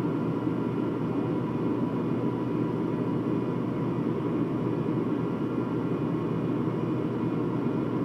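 BMC Pro 624 fire truck's diesel engine running at a steady speed close by, a constant, unchanging drone.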